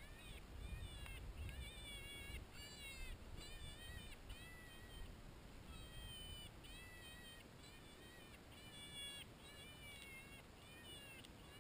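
Predator call sounding a string of short, faint wailing cries, about two a second, to call in coyotes.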